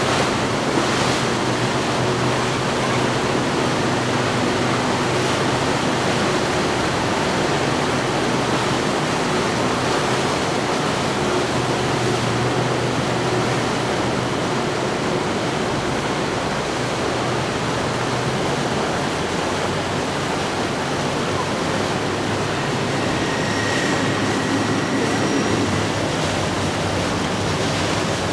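Rushing water from a motor yacht's wake and hull spray, with the low steady drone of its engines underneath; the drone fades about two-thirds of the way through.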